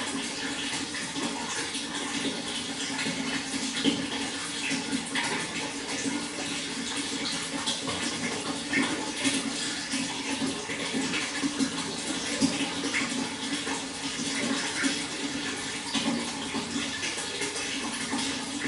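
Water flowing steadily, with many small splashes sounding through the steady rush.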